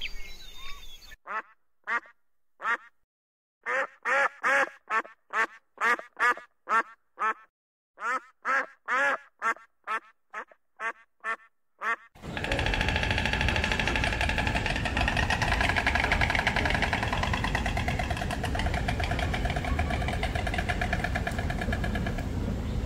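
An animal calling in a run of short, separate calls, about two a second. About halfway through this gives way to a dense, continuous chorus of many overlapping calls.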